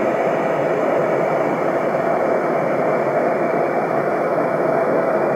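Handheld kitchen blowtorch burning steadily with a loud, even rush of flame as it is played over a fish fillet to sear it.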